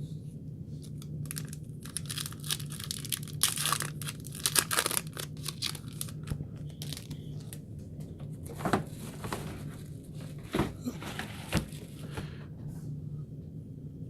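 A trading card pack wrapper being torn open and crinkled by hand, in irregular rustling bursts with a few sharper crackles, over a steady low hum.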